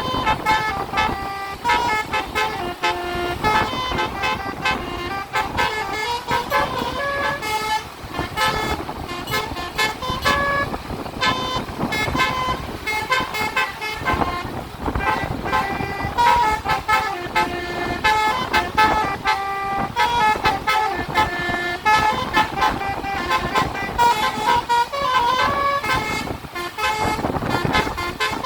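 A bus's basuri telolet musical horn playing a tune of short, stepped notes, over the noise of the bus and road.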